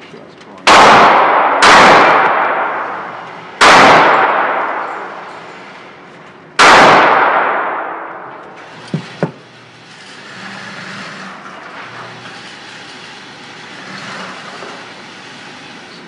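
Four gunshots in an indoor range, each followed by a long echoing decay off the concrete walls: two about a second apart, then one near four seconds and one near seven. Then two small clicks and a quieter steady hum as the electric target carrier brings the target back.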